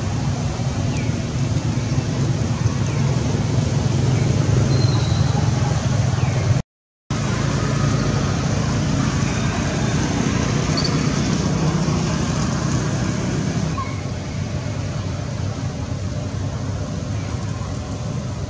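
Steady outdoor background rumble and hiss, strongest in the low range, with a few faint, short high chirps. It cuts out completely for about half a second around seven seconds in.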